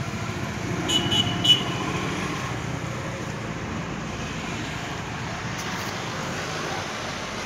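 John Deere tractor's diesel engine running steadily under a front loader. About a second in come three short, sharp, high-pitched clinks.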